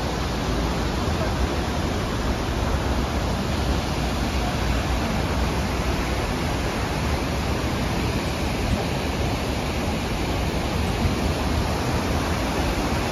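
Man-made stepped waterfall pouring into a shallow city stream: a steady rush of falling water.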